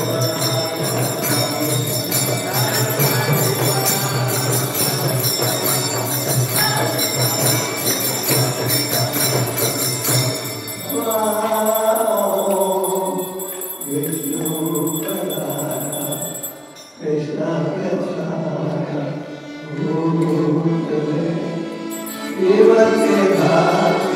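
Devotional kirtan: karatals (small hand cymbals) ring on a steady beat with accordion and mridanga drum for about the first ten seconds, then the cymbals stop and chanting voices carry on in sung phrases with short breaks.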